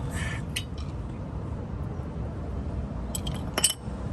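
Light metallic clinks and a short scrape as brake pads and their clips are handled at the caliper, with the sharpest click about three and a half seconds in.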